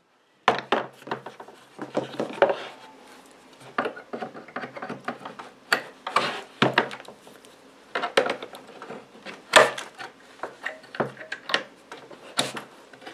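Pliers gripping and working wire staples out of the particle-board end of a drawer side: irregular metal clicks and scrapes, with sharper knocks as the drawer and a wooden block shift on the table.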